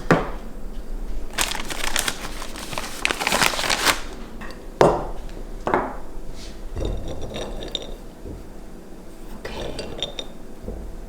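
Kitchen clatter of pans and utensils being handled, with rustling and a few sharp knocks.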